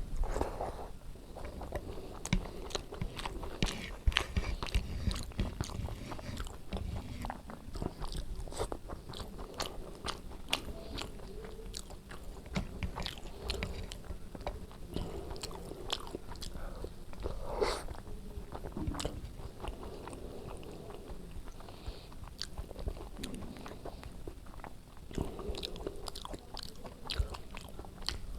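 Close-up eating sounds of a person chewing a mouthful of rice and brinjal curry: wet chewing with many small, irregular mouth clicks and smacks.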